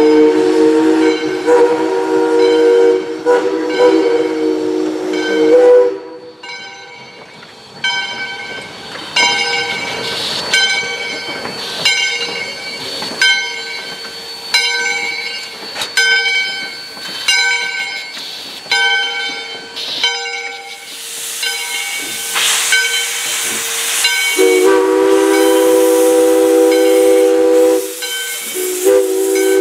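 Steam locomotive No. 40's whistle blowing a long chord blast. Then its bell rings about once a second as the engine rolls past, with a rush of steam hiss about three-quarters of the way through. The whistle sounds again in two blasts near the end.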